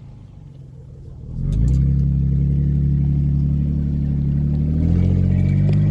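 An engine running steadily; it grows louder and higher about a second and a half in, and rises in pitch again near the end.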